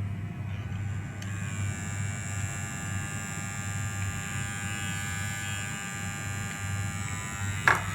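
Wahl electric hair clipper running with a steady buzz and no rattle, its loose blade-holder screws having been tightened. A single sharp click comes near the end.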